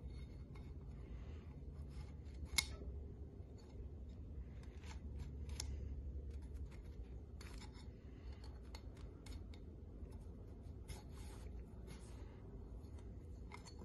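Faint handling sounds as new rubber seals are stretched and worked by hand onto a cast aluminium 4L60E transmission part: scattered small clicks and rubbing scrapes, with one sharper click about two and a half seconds in, over a steady low hum.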